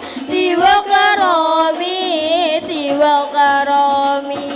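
Sholawat singing: a voice holds long notes between verses, ornamented with a wide, wavering melisma that rises and falls.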